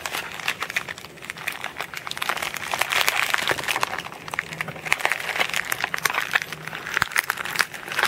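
Plastic packaging being handled and opened by hand, crinkling and crackling with a dense run of small clicks.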